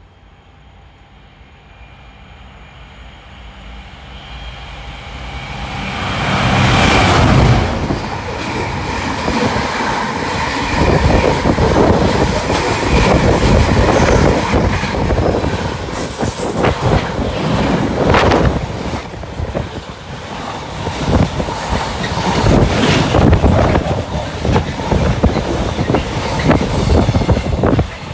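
Container freight train passing through: the diesel locomotive's engine grows louder as it approaches and goes by about seven seconds in. The long, steady rumble and clatter of the container wagons' wheels over the rail joints follows, dropping away right at the end.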